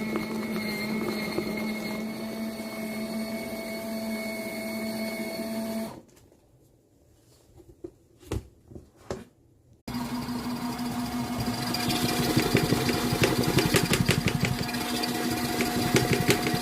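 Mini washing machine motor running with a steady hum. It stops about six seconds in, a few clicks follow during a short pause, and the motor starts again about ten seconds in, louder and with a fast rattle.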